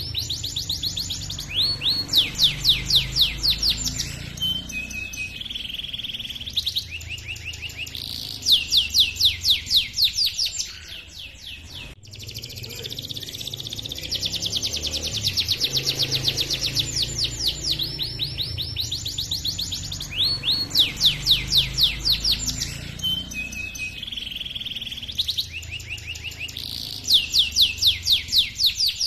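Domestic canary singing a long, varied song of fast rolling trills and runs of loud, sharp repeated chirps, the gacor 'ngerol' song used as a training track for other canaries. There is a brief lull about halfway through.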